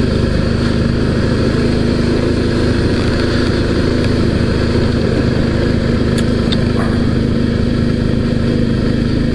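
Suzuki V-Strom 650's V-twin engine running steadily at low speed as the motorcycle rolls along, heard from on the bike.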